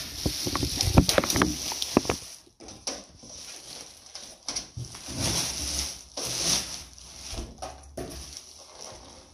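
Clear plastic wrap rustling and crinkling as it is pulled off a multicooker, with scattered small clicks and knocks; loudest in the first two seconds, then softer rustling.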